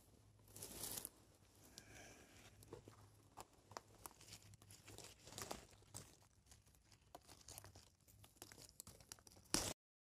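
Faint rustling and crackling of dry brushwood twigs as a gloved hand pushes in and picks Arum maculatum (mancar) leaves, with scattered small snaps and tearing. A louder crackle comes near the end, then the sound cuts off abruptly.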